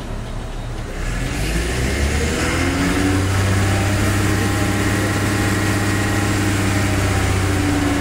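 Mobile crane's diesel engine revving up about a second in, then holding steady at a higher speed while it powers the hoist lifting a steel bridge girder.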